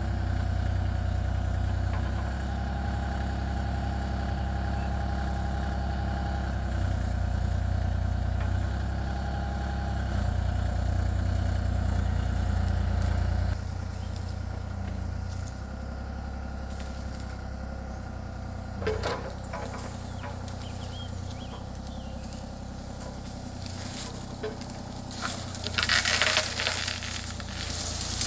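Kubota KX033-4 compact excavator's diesel engine running steadily, then dropping abruptly to a lower, quieter note about halfway through. A few short cracks and crunches come near the end.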